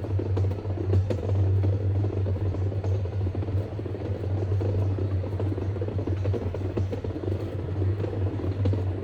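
Electric rack-railway train climbing, heard from the driver's cab: a steady low hum from the drive with an even rumble of running gear over it.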